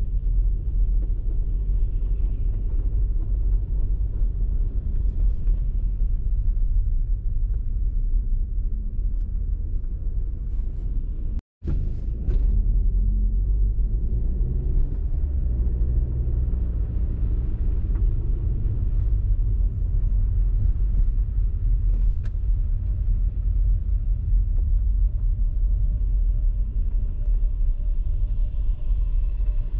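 Steady low rumble of a car driving, the engine and tyre noise of the moving vehicle. The sound cuts out for an instant about eleven and a half seconds in, and faint steady tones join it near the end.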